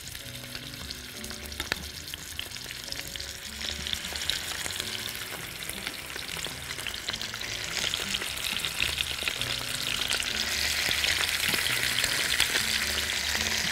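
Chicken thighs sizzling in hot olive oil in a frying pan as the pieces are laid in skin-side down one after another. The sizzle grows louder as each piece goes in, with a few light taps of the tongs.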